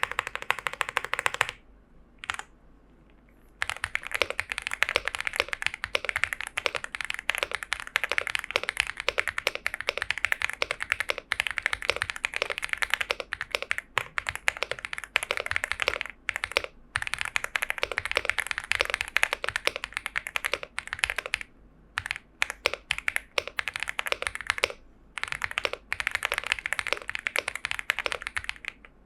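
Fast typing on a Leobog Hi8 aluminium mechanical keyboard fitted with Leobog Graywood V4 linear switches: a quick run of keystroke clacks, with a pause of about two seconds near the start and a few brief breaks later.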